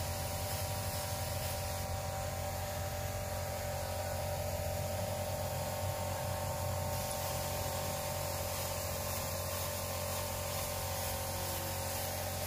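A motor running steadily with an even hiss over it, unchanging throughout.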